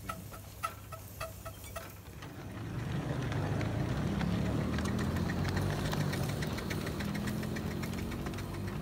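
A 5-inch gauge miniature steam train running past at track level. Regular ticks of the wheels come first, then a louder rolling rumble of wheels on the rails sets in about two and a half seconds in as the riding car passes close, with rapid ticking over the top.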